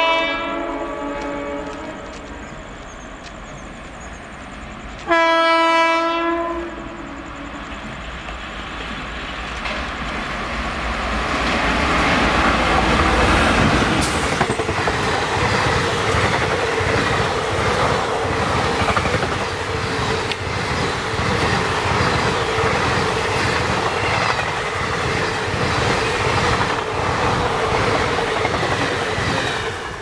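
Locomotive horn blasts, one ending just after the start and a short second blast about five seconds in; then an express passenger train passes close at speed, a loud rush with rhythmic wheel clatter over the rail joints that builds from about ten seconds in and carries on to the end.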